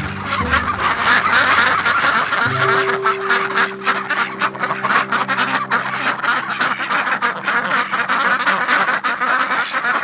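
A flock of domestic ducks, Khaki Campbells among them, quacking continuously, many calls overlapping.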